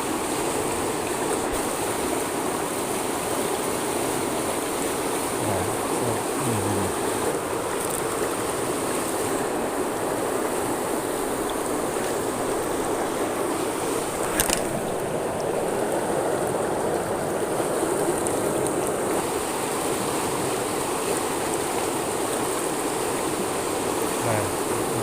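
Fast-flowing river water rushing steadily, swollen after a flood, with a single sharp click about halfway through.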